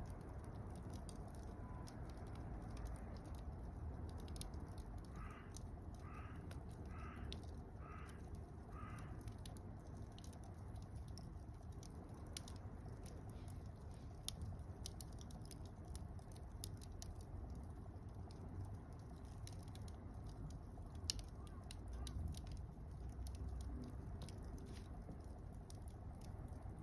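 Wood fire of mixed conifer and broadleaf logs crackling and popping in a fire stand, with a low steady rumble of burning. About five seconds in, a crow caws five times in a row.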